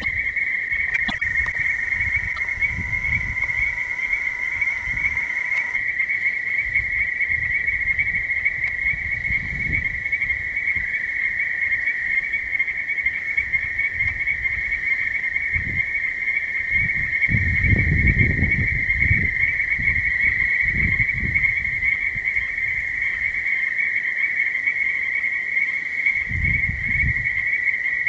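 Dense chorus of frogs calling at a pond at night, a steady high-pitched trilling with no break. Low rumbling comes and goes underneath, loudest about two-thirds of the way through.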